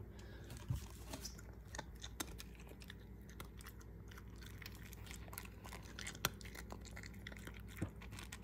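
Shiba Inu eating dry kibble from a bowl: scattered, irregular crunches and clicks.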